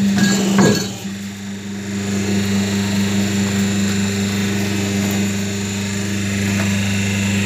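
Hydraulic double-die paper plate machine running with a steady electric-motor hum, with a few clattering knocks in the first second.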